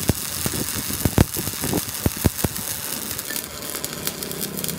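Electric arc welding on a steel axle shaft: a steady crackling sizzle of the arc, with several sharp pops in the first half.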